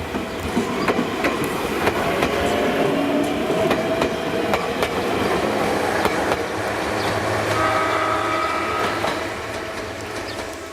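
Ueda Electric Railway electric train passing a level crossing, its wheels clicking over rail joints over a steady running rumble and motor tones. The sound fades out near the end as the train moves away.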